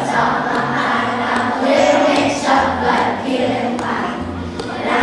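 Children's choir singing a pop song over instrumental accompaniment, with a bass line stepping from note to note.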